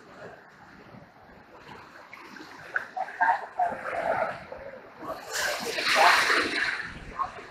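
White-water rapids of the Niagara River rushing and splashing over rocks at the bank, swelling into a much louder surge for about a second, about five seconds in.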